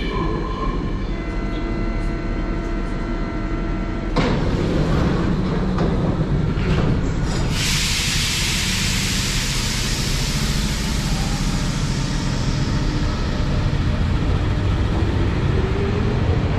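Paris Métro MF 77 train at the platform: a steady multi-tone door warning sounds, then the doors shut with a sudden clatter about four seconds in. A long loud air hiss follows from about seven seconds, and the train pulls away with a rising motor whine near the end.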